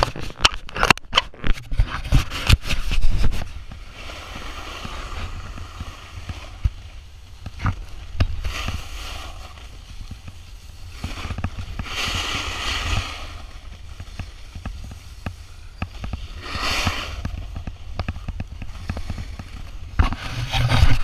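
Snowboard sliding over soft summer snow, with the edge scraping in swells of hiss every few seconds and wind rumbling on the microphone. A quick run of knocks and clatter comes in the first three seconds.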